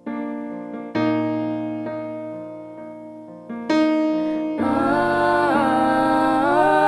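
Worship song: keyboard playing slow held chords, struck afresh about a second in and again near four seconds, with sustained sung voices joining over the chords in the second half.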